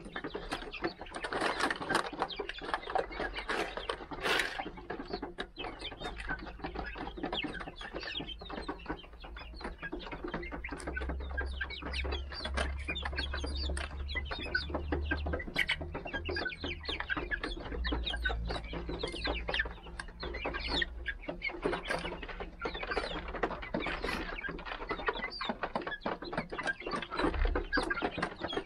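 Young Golden Laced Polish chickens clucking and chirping as they forage, with many small quick pecking and scratching sounds on the gravelly dirt floor.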